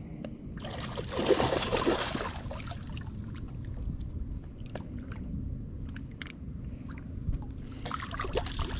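A hooked catfish splashing and thrashing at the water's surface, loudest for about two seconds starting half a second in, with smaller splashes near the end, over steady wind noise on the microphone.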